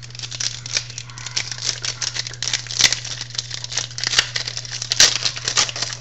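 Football trading cards and foil pack wrappers being handled, giving a run of quick crinkles and clicks with a couple of louder snaps about three and five seconds in.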